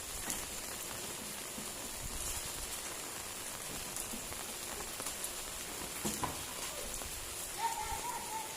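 Steady rain falling and pattering on the ground, with brief children's voices calling out near the end.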